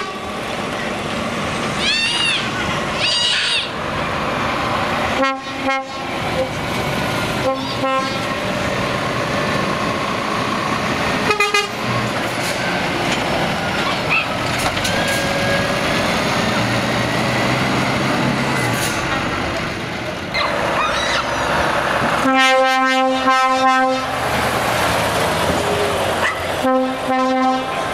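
Diesel lorries drive past with engines running while drivers sound loud air horns. There are short blasts a few times in the first half, then a longer run of blasts about three-quarters of the way through and another just before the end.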